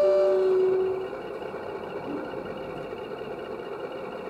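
Two-tone diesel horn from a model Class 53 locomotive, a higher note then a lower one, ending about a second in. A steady hum follows.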